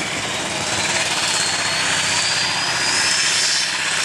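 Heavy super stock pulling tractor's turbocharged engine running loud and steady, with a high whistle over it that climbs slowly in pitch.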